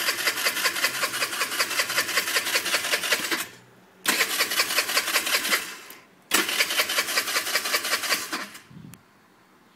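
A 49cc Chinese scooter engine cranked by its electric starter in three tries, a fast even chugging that stops each time without the engine catching: it turns over but won't start.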